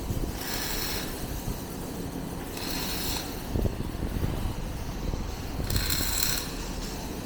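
Heavy-fabrication workshop noise: a steady low machinery rumble, with a short hiss that recurs about every three seconds.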